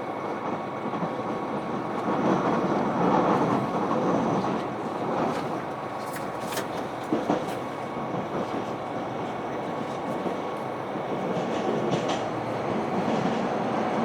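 KiHa 261 series diesel express railcar running, heard from on board: a continuous rumbling running noise with a faint steady whine, swelling a couple of seconds in. A few clicks of the wheels over rail joints come about six to seven and a half seconds in.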